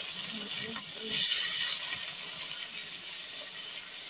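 Hot oil in a pan sizzling hard as small snails are dropped in, the oil flaring up into flames, with a louder surge of sizzling about a second in.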